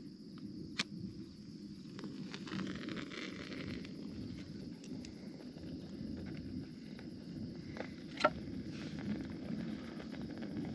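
Crickets chirping in a fast, even pulse over a steady low rumble of breeze on the microphone. Two sharp clicks stand out, a faint one just under a second in and a louder one about eight seconds in.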